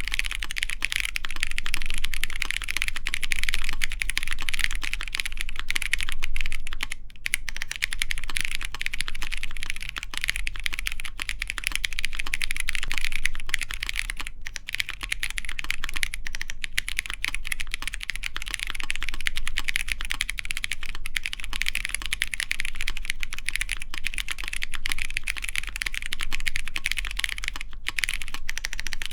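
Continuous fast typing on a mechanical keyboard with stock Kailh Polia tactile switches, GMK Pixel ABS keycaps and a full aluminium plate: a dense, steady run of keystroke clacks with only a few brief pauses.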